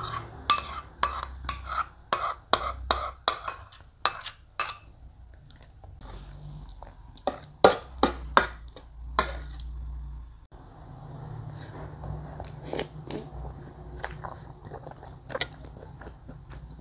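A metal spoon clinking and scraping against a ceramic plate as rice is mixed with soup: a quick run of about ten sharp clinks in the first five seconds and another short cluster about eight seconds in. After that, softer chewing sounds.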